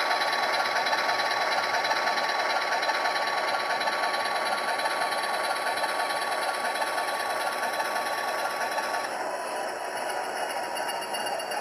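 Model diesel locomotive running slowly on track with its DCC sound decoder playing a diesel engine sound through a small speaker, mixed with the whir of its motors and gearing. A thin steady tone in the sound stops about nine seconds in.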